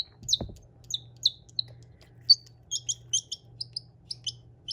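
A baby chick peeping: short, high peeps several a second, in quick runs.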